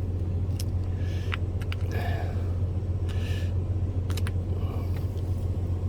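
Steady low hum of an idling truck engine, with scattered small clicks and crinkles of food packaging being handled.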